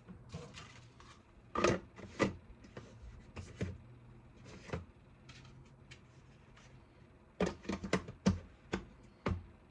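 Unboxing sounds: a product kit and its packaging being handled, giving irregular clicks and taps, with a quicker run of sharper clicks near the end.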